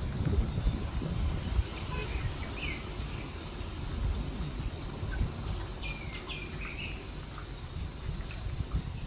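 Outdoor ambience of wild birds giving a few short chirps, about two seconds in and again around six to seven seconds, over a gusting low rumble of wind on the microphone.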